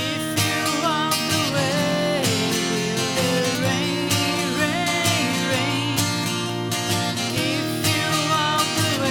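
Acoustic folk music: strummed acoustic guitar under a wavering harmonica melody with bent notes.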